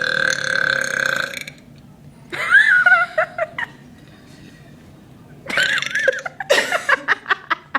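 A woman's long, drawn-out belch held at a steady pitch, ending about a second and a half in, made as the longest one she can do. Shorter sounds with wavering pitch follow, about two and a half and six seconds in.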